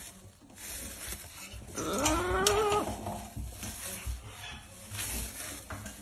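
A macaw gives one drawn-out call about two seconds in, rising and then holding its pitch for about a second. Faint knocks and rumble from the nest box being handled run around it.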